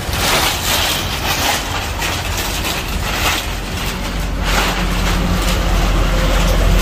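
A large clear plastic bag rustling and crinkling in irregular bursts as it is handled and pulled over a potted plant, over a low steady rumble.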